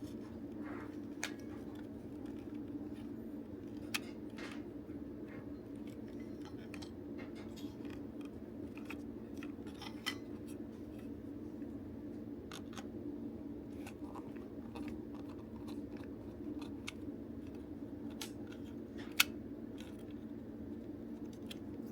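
Scattered light clicks, taps and small scrapes of plastic parts and small tools while a DX Buggle Driver Zwei toy belt is being taken apart, with one sharper click near the end, over a steady low hum.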